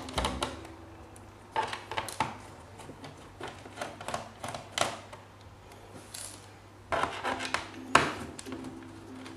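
Small screws being backed out of a laptop's bottom cover with a screwdriver, giving irregular clicks, scrapes and small metallic clinks as the screws are turned out and set down. A cluster of louder clicks comes about seven to eight seconds in.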